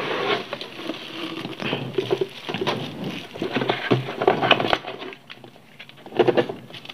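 Clear plastic bag crinkling and rustling around a portable speaker as it is lifted out of a cardboard box and handled, with cardboard being moved. The rustling eases off about five seconds in, then comes back in a short burst near the end.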